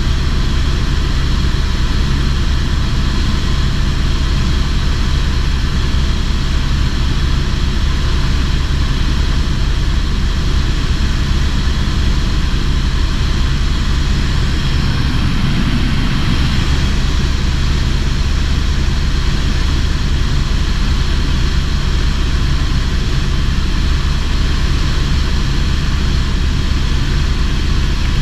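Helicopter engine and rotor running steadily, heard on board in flight: a loud, unbroken drone with a low, even throb.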